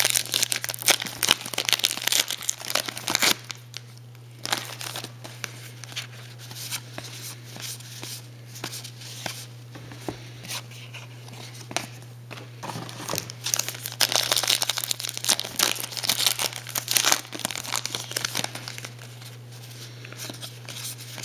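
A trading-card pack wrapper being torn open and crinkled in the hands, then the cards inside being handled and flipped through. The crinkling is busiest for the first three seconds and again in the middle. A steady low hum runs underneath.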